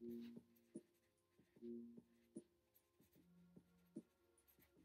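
Pencil writing on sketchbook paper: faint strokes and light taps about every half second, with a few brief faint low hums.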